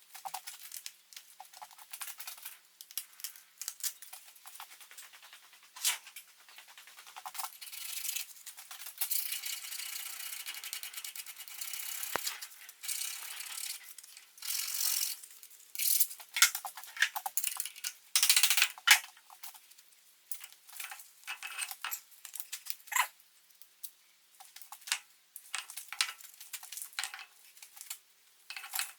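Irregular scratchy brushing and scraping, in short strokes with a few longer runs of a couple of seconds, the longest stretch a little past the first quarter; no motor is heard running.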